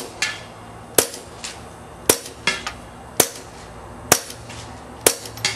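Suppressed .22 LR Browning Buck Mark pistol with an SWR Spectre suppressor fired five times, about one shot a second, each a short, sharp, really quiet crack. Each shot is followed a fraction of a second later by a fainter click: the bullet hitting the target downrange.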